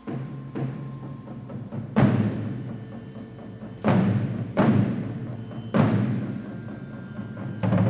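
An indoor percussion ensemble playing music: loud accented ensemble hits every second or two, each ringing out over low held notes, starting suddenly at the opening.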